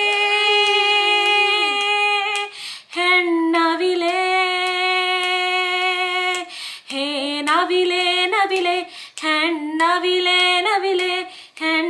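A woman singing a Kannada song unaccompanied, in long held notes, in four phrases with short breaks for breath between them.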